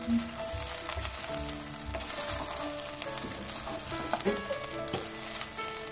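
Vegetable fried rice sizzling in a hot pot as it is stirred and tossed with a wooden spatula, with scattered knocks and scrapes of the spatula against the pan. Soft background music plays underneath.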